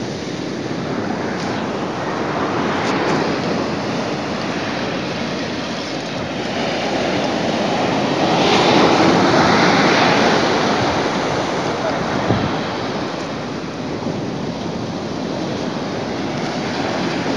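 Ocean surf breaking and washing up a sandy beach, swelling to its loudest about halfway through, then easing back.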